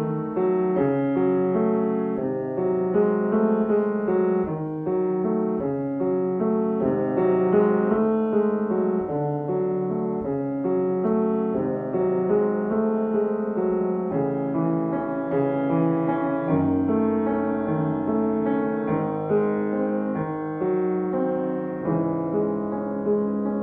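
Slow piano music, with held chords and notes changing every half second or so.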